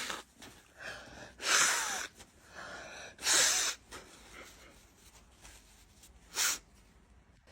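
A woman in a sneezing fit: two loud sneezes about a second and a half and three seconds in, each led by a quick gasping in-breath, then a shorter sneeze about six seconds in.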